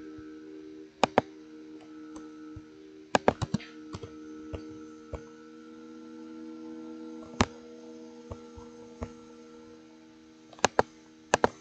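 Scattered computer keyboard keystrokes and clicks, a few at a time with pauses between, over a steady low electrical hum.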